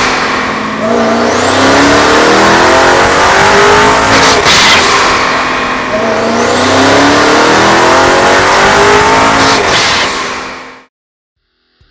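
The twin-turbocharged and supercharged 6.2-litre Hemi V8 of a Hellcat Challenger runs at full throttle on a chassis dyno. The engine note climbs in pitch twice, with a sharp break and drop about halfway, as on an upshift, and a high whine rises alongside. The sound cuts off abruptly near the end.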